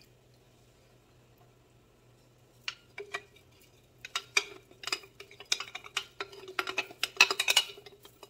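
Near silence for the first couple of seconds, then two knocks. From about four seconds in comes a run of quick, irregular clicks and scrapes of a utensil against a glass pasta-sauce jar and the pot as the thick sauce is emptied in.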